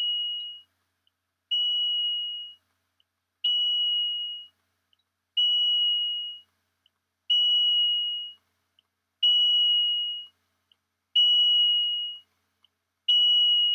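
CRRT machine (NxStage System One cycler) chiming: a single high tone about a second long, repeated about every two seconds, with a tiny pip between tones. It is the prompt for the second display test during prime and alarm test, and it keeps sounding until the mute key is pressed.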